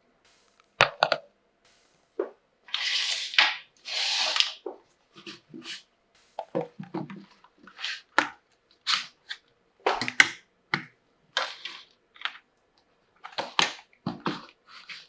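Plastic toy pieces and packaging handled: a string of sharp clicks and taps, with two longer rustles of wrapping about three and four seconds in.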